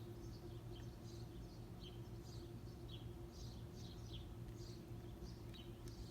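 Small songbirds chirping: many short, high chirps, several falling in pitch, faint over a steady low hum.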